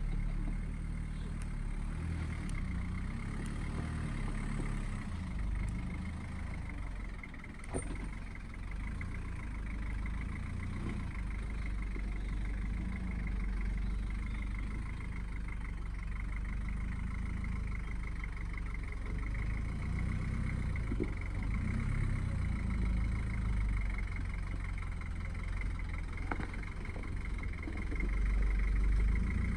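Engine of a solid-axle Toyota LN65 Hilux, a diesel, running at low revs as it crawls over rock ledges, the rumble swelling and easing with the throttle. There is one knock about eight seconds in, and the engine gets louder near the end as the truck nears.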